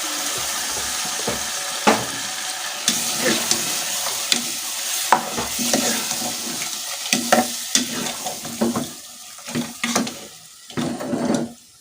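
Food sizzling as it fries in hot palm oil in a pot, stirred with a spoon that clicks and scrapes against the pot now and then. The sizzle dies down over the last few seconds, leaving separate stirring knocks.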